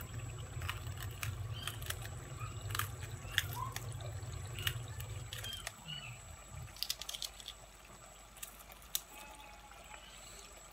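Scattered soft clicks and small wet drips as green chillies are sliced with a knife straight into a pot of simmering chana dal with lauki. A low steady hum underneath stops about six seconds in.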